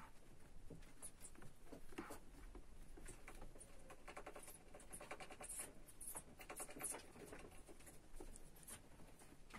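Faint scratching and pattering of a hamster's claws on the floor and wall of a clear plastic tub, with runs of quick little ticks in the middle.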